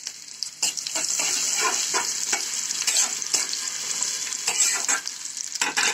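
Sliced onion, garlic and green chillies sizzling in hot oil in a kadai. A metal spatula stirs them, scraping and knocking against the pan again and again.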